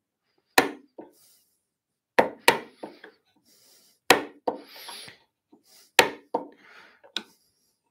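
An 8mm mortise chisel being driven into hardwood with a mallet, breaking the wood fibres while a mortise is chopped. There are five sharp wooden knocks, each about one and a half to two seconds apart, with lighter taps between them. A scratchy crunch of fibres being broken out comes around the middle.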